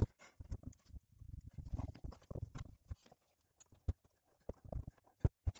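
Faint, irregular clicks and rustles of gloved hands handling and working on electrical wires.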